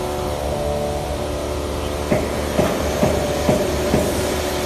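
Steady hum of running workshop machinery, joined about halfway through by evenly spaced knocks about twice a second.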